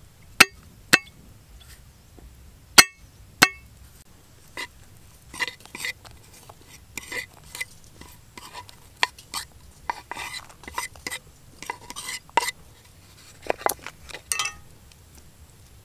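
Four sharp chops of a cleaver on a wooden chopping block in the first few seconds, then a run of light, irregular taps and clatters as sliced garlic, shallots, lemongrass and chillies are dropped into a stone mortar.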